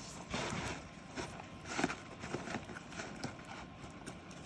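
Paper rustling and crinkling as a gift is folded and wrapped by hand, with scattered light taps and one sharper tap near the middle.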